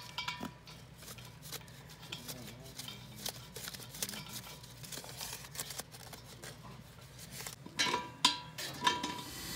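Hands working brass gas-line fittings and a valve at a propane tank connection make small scattered clicks and rustles. Near the end come a few sharp metallic clinks that ring briefly.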